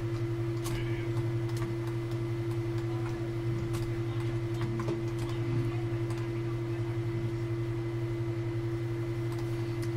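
Steady low electrical hum with a constant higher tone above it, and a few faint clicks scattered through.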